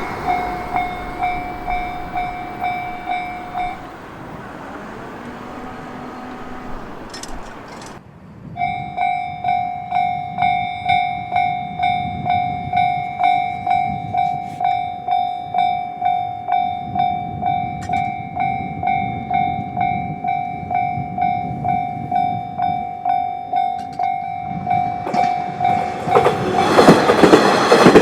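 Japanese level-crossing electronic warning bell ringing in a steady clang, about one and a half strikes a second. It stops about four seconds in and starts again around nine seconds in. Near the end a train passes close by, and its loud rumble of wheels on rails swamps the bell.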